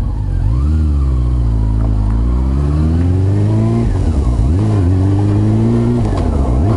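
Honda CB400 Super Four's inline-four engine pulling away, its pitch climbing and then dropping back several times as it is shifted up through the gears.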